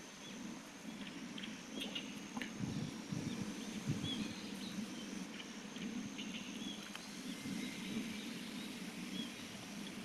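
Campfire crackling with scattered small pops, while small birds chirp now and then in the background.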